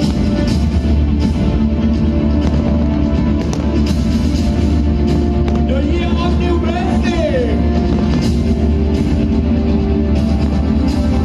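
Loud rock music with a drum kit and a steady heavy beat.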